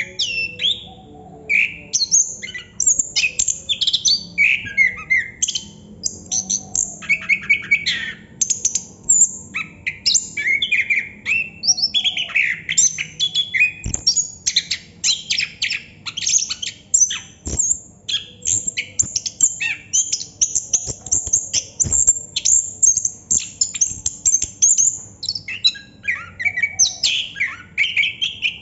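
Chestnut-capped thrush (anis kembang) singing non-stop, a long unbroken rolling song of fast, varied high notes with barely a pause. Three faint knocks sound about halfway through and near the two-thirds mark.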